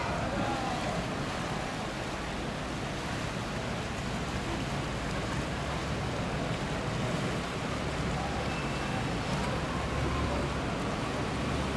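Stern-wheeler excursion boat passing close by: a steady low engine rumble and the wash of water churned along its hull, with wind on the microphone. The rumble swells slightly near the end.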